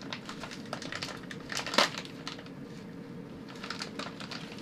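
Wrapping paper rustling and crinkling in a pet monkey's hands as it picks at and tears open a gift, with one sharper crackle about two seconds in.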